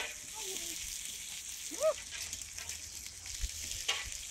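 Bacon, pancakes and an omelette sizzling on a large round steel griddle, a steady frying hiss. A brief rising-and-falling voice-like sound about two seconds in, and a short scrape of the metal spatula on the griddle near the end.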